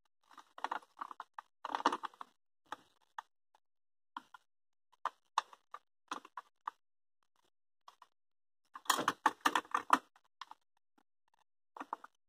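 Clicks, knocks and light rattling of computer parts being handled inside an open desktop PC case, busiest about a second in and again about nine seconds in, with scattered single clicks between.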